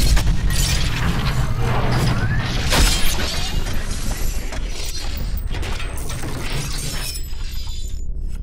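Metallic sound effects: a dense run of clanks, clicks and ratcheting over a steady low rumble, thinning out after about seven seconds.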